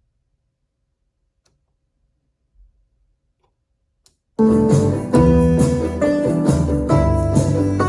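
Near silence for about four seconds, then music with guitar and keyboard cuts in abruptly and plays on at full level.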